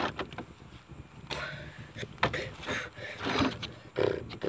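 Close-up handling noise of a partly filled plastic water bottle being gripped and swung near the microphone: scattered light knocks and short crinkly rustles.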